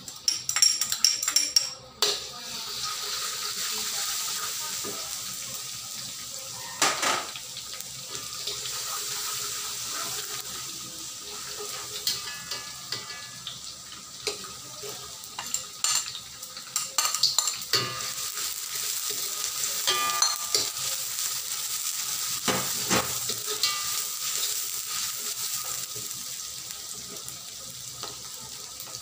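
Minced garlic dropped into hot oil in a wok, then frying with a steady sizzle as a metal ladle scrapes and knocks against the wok while stirring. Chopped red onion goes in partway through and fries along with the garlic: the garlic-and-onion sauté that begins the dish.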